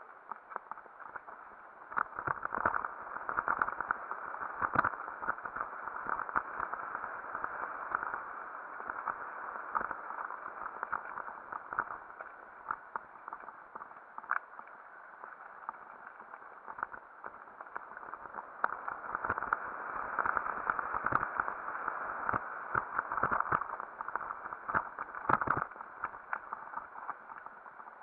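Mountain bike riding fast down a dirt and gravel trail: steady tyre and rolling noise with the bike rattling, and sharp knocks as it hits bumps and stones. It is busier over the first third and again over the last third, with a calmer stretch in the middle.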